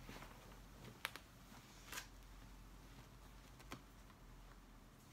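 Near silence: room tone, with three faint short knocks or clicks spread through it.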